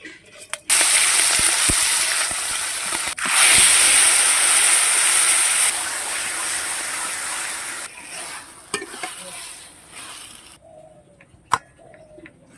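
Food sizzling loudly in hot oil in an aluminium kadai. It starts suddenly about a second in, as turmeric-coated hilsa fish heads go into the oil, and runs strong for several seconds before easing and dying away. A few sharp clicks come near the end.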